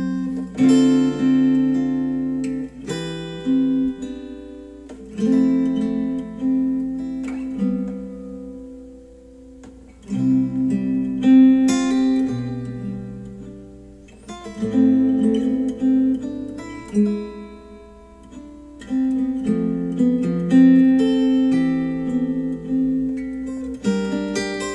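Acoustic guitar music played back through a pair of KEF R3 bookshelf speakers: chords plucked and strummed every second or two, each ringing and fading.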